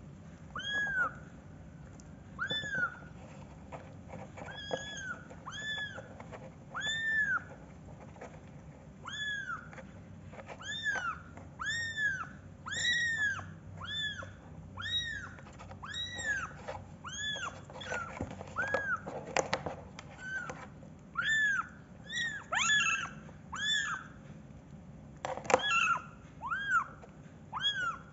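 Young kittens meowing over and over in high, thin calls that rise and fall in pitch. The calls are spaced out at first, then come about once a second. A brief rustling noise comes a few seconds before the end.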